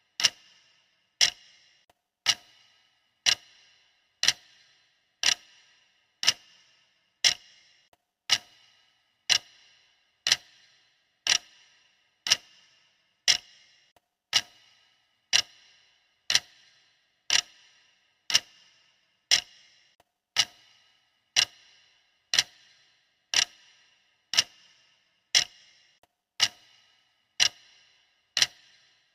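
Clock ticking sound effect: one sharp tick about every second, even and steady, each with a short ring.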